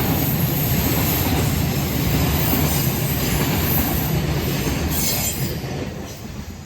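Freight train wagons rolling past on the rails: a steady rumble and rattle of wheels that fades away over the last second or so.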